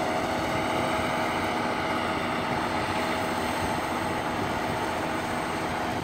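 Heavy drilling rig running: a steady, unbroken mechanical drone with a constant hum.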